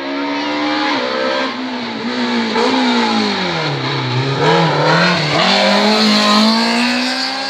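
Rally car engine under hard load. Its note drops steeply about three seconds in as it slows for the bend, holds low for a moment, then climbs again as it accelerates away, loudest in the second half.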